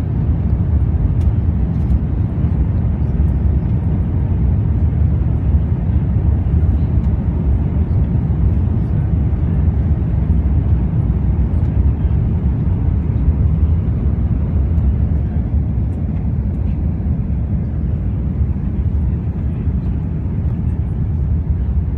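Steady low roar of jet engines and rushing air inside an airliner cabin during the climb after take-off, easing slightly near the end.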